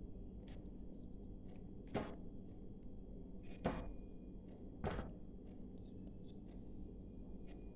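Three light knocks or clicks, a second or so apart, over a low steady hum.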